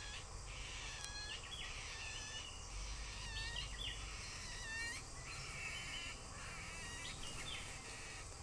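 Small birds chirping: a busy, continuous run of short high chirps, several a second, over a faint low rumble.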